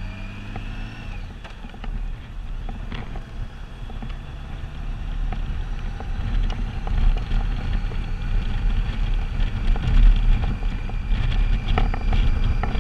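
Large touring motorcycle riding along, its engine running under a low rumble of wind buffeting the helmet-mounted microphone, growing louder toward the end.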